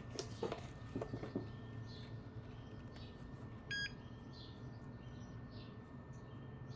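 A few light clicks, then one short electronic beep about four seconds in, from the Tech 2 scan tool being restarted. Faint bird chirps in the background.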